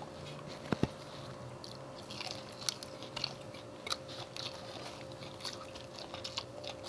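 People biting and chewing fried chicken, with scattered small crackles and a sharp click just under a second in.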